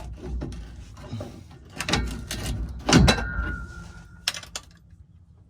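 Metal tools being handled: scattered knocks and scraping, then a sharp metallic clank about three seconds in that rings on for about a second, followed by a few short clicks.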